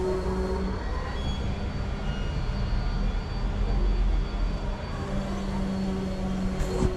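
A steady low mechanical rumble with a droning hum, like a distant engine. Just before the end there is a single sharp knock.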